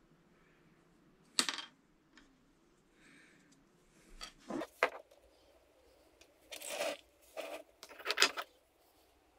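Small hard plastic and metal parts of Alps keyboard switches clicking and clinking against each other and the work surface as they are handled, in separate bursts: one about a second in, a short cluster near the middle and a longer cluster near the end.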